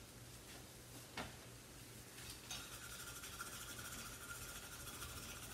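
Hand-cranked rotary cone shredder grating a carrot: a faint rasping, with a single click about a second in.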